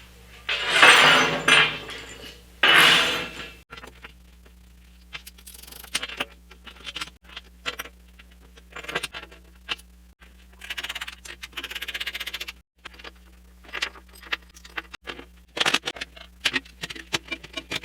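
Hand tools and steel parts clinking, knocking and scraping while the steel table top is tightened down. There are two longer scrapes early on, then a run of short metallic clicks and knocks with a few more scraping stretches.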